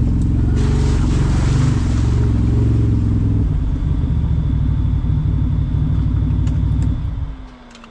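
Can-Am Maverick Sport 1000R side-by-side's V-twin engine, through an aftermarket HMF exhaust, running hard under load. A rushing hiss lies over it from about half a second to two and a half seconds in. The engine eases off after about three and a half seconds and drops away sharply near the end, leaving a faint tone sliding down in pitch.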